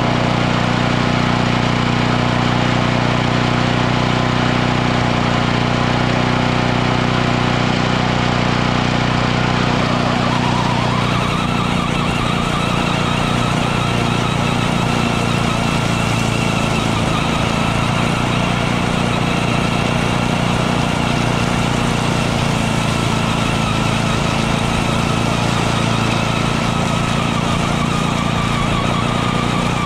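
Walk-behind lawnmower's small gas engine running steadily while mowing. A higher whine from the RC truck's electric drive sits over it and rises in pitch about ten seconds in.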